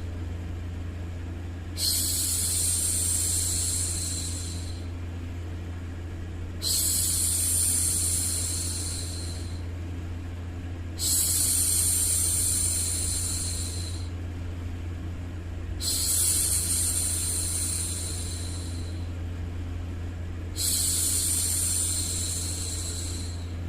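A woman's long, drawn-out hushing 'shhh', repeated five times at an even pace about every four to five seconds. Under it runs a steady low hum of background noise.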